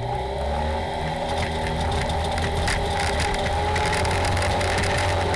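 Polaris RZR side-by-side's engine running steadily under throttle as it drives a rough dirt trail, heard from inside the cab. Frequent rattles and knocks from the machine jolting over the ground start about a second and a half in.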